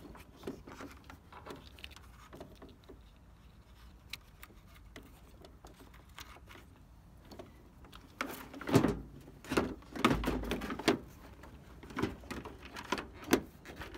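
Hands fitting an LED headlight bulb and its wiring connector into a plastic headlight housing make scattered small clicks and rubbing. There is a run of louder knocks and rattles about eight to eleven seconds in, and a few sharp clicks near the end.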